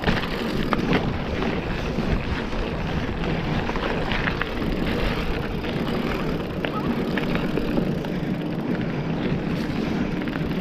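Mountain bike rolling down a dirt trail: steady tyre noise on the ground with frequent small clicks and rattles from the bike over rough terrain.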